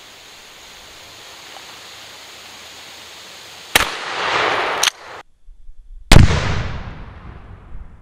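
Two blasts from a Remington 870 12-gauge pump-action shotgun, about two and a half seconds apart. The second is the louder, with a long echo that fades away.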